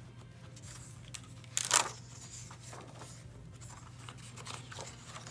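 Paper pages of a diary being handled and turned, soft rustling with one louder, brief swish of a page about a second and a half in, over a low steady hum.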